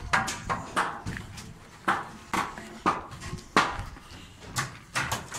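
Footsteps scuffing and crunching on a gritty concrete slab, about two uneven steps a second.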